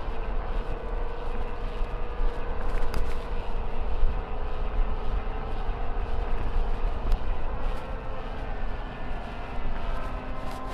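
Wind rumbling on the microphone while a mountain bike is ridden, with a steady whine whose pitch drifts slowly down and then rises near the end.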